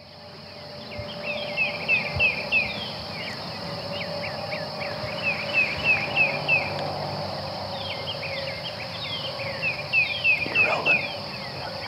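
Daybreak woods: a songbird sings runs of quick, repeated downslurred whistled notes in two bouts, over a steady high insect drone.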